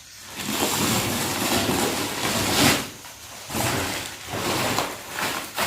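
Cardboard shipping box being handled and turned over, scraping and rustling in several stretches, the longest at the start.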